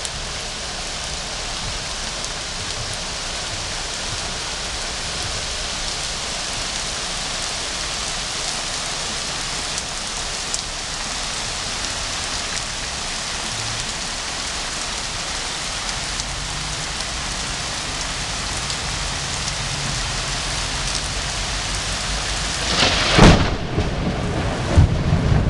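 Steady rain falling on garden trees and shrubs. A low thunder rumble builds through the second half, and near the end a close thunderclap cracks loudly and rolls on.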